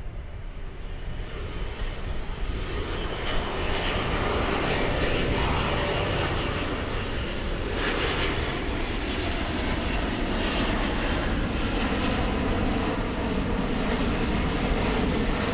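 Jet airliner passing low overhead: its engine noise builds over the first few seconds, then holds as a loud, steady roar.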